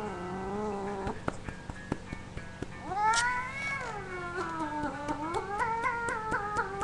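A cat yowling in long, drawn-out calls: a short one at the start, a long call about three seconds in that rises and then falls, and a wavering call that steps up and down in pitch near the end.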